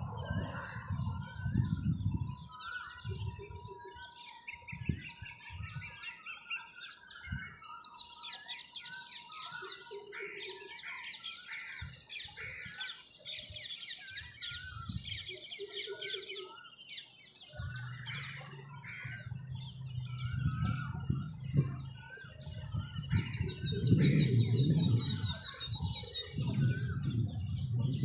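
Birds chirping and trilling in a morning chorus, many short calls overlapping. A low rumble sits under them at the very start, fades, and builds again through the last third, where it is loudest.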